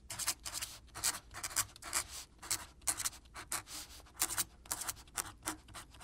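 Pen scratching across paper in a quick run of short writing strokes, about three or four a second.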